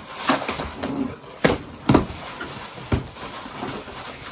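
Tissue paper rustling and cardboard gift boxes being handled and opened, with three sharp knocks in the middle.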